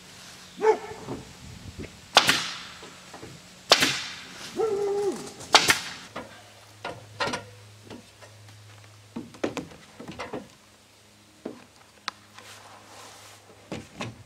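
Pneumatic nail gun driving nails into wood: three loud, sharp shots a second or two apart in the first half, then lighter clicks and knocks of roofing work.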